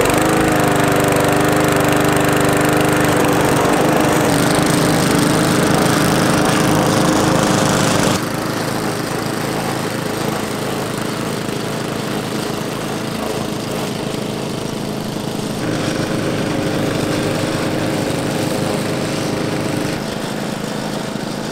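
Homemade double lawn mower's two small petrol engines running steadily while it is pushed through grass. It starts loud, and the level drops a little about 8 seconds in.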